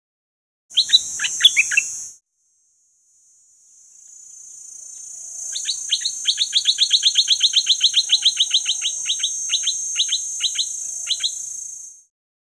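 Stripe-throated bulbul singing: a short burst of sharp, falling notes about a second in, then a long, fast run of falling notes, about six a second, from about five to eleven seconds. A steady, high insect buzz comes in with the first notes and swells again under the long run.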